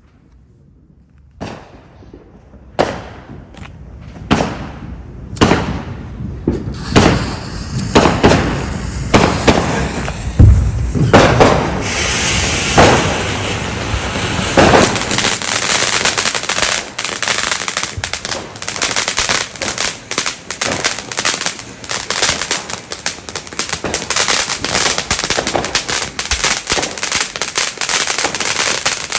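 Firecrackers going off: a few separate sharp bangs about a second apart, then from about seven seconds in a dense, rapid crackle of pops that keeps going, with one heavier bang about ten seconds in.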